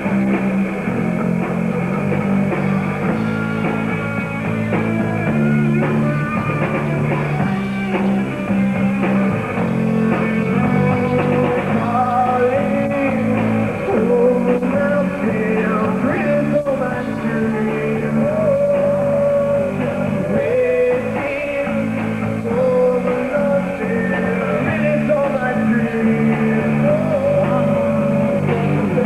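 Live rock band playing loud and steady: electric guitar and bass, with a sung vocal melody over them that comes in more strongly about halfway through.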